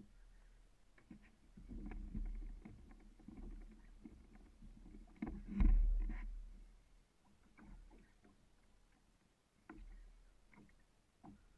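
Knocks and bumps on a plastic fishing kayak's hull and fittings as the angler moves around fighting a fish, over a low rumble, with one heavy thump about halfway through.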